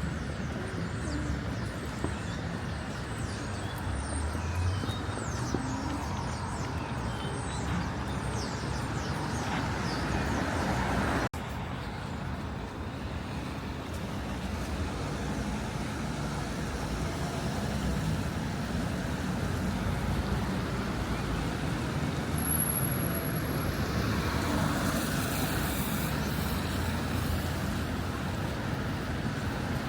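City street ambience of passing road traffic, a steady wash of car and vehicle noise, with a sudden break about eleven seconds in.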